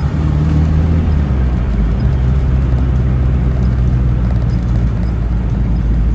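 Car engine and road noise heard from inside the cabin while cruising at a steady speed, a continuous low drone with no revving or turbo flutter.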